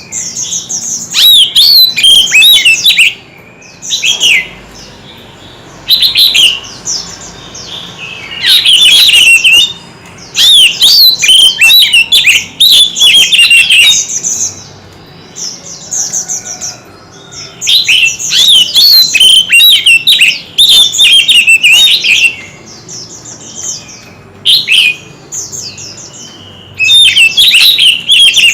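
White-rumped shama singing in rapid, varied phrases of whistles and trills, one to three seconds each, separated by short pauses.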